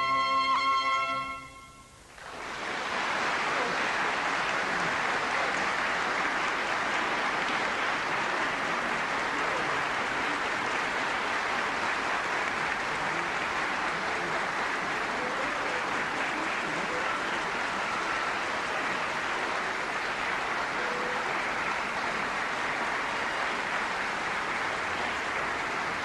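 Orchestra and two solo trumpets holding the final chord of a baroque concerto, which dies away about two seconds in. Steady audience applause follows and continues.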